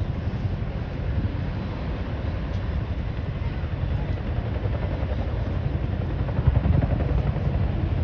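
Chinook tandem-rotor helicopters running as they lift off and fly low: a steady, low, rapidly pulsing beat of the rotor blades that swells briefly about six and a half seconds in.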